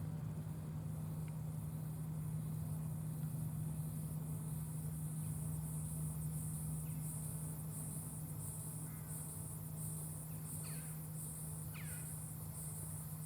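Grasshopper stridulating: a high-pitched, rapidly pulsing buzz that repeats steadily, over a constant low hum. A few short, falling bird chirps sound near the end.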